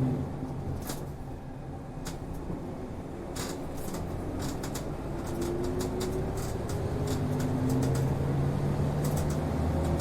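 Inside a route bus on the move: the engine's note climbs in pitch several times from a few seconds in as the bus picks up speed, over road noise, with scattered clicks and rattles from the cabin.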